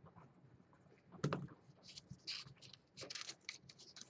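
Faint light taps and clicks of handling at a desk: one soft knock about a second in, then a run of small scattered clicks.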